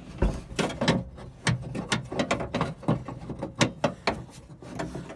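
Window regulator mechanism inside a 1956 Ford F100 door clicking and clunking as it is pushed and worked loose by hand, a run of irregular metal clicks and knocks. It does not come free because its arm is still in the way.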